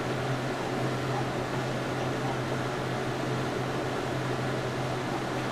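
Steady low hum over an even hiss of room noise, with no distinct sounds standing out.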